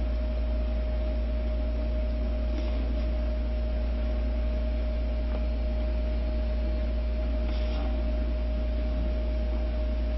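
Steady low hum with an even hiss and a faint steady higher tone, unchanging throughout.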